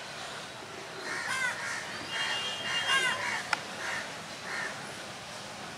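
Birds calling outdoors: a run of short, repeated calls from about a second in to past four seconds, with one sharp click partway through.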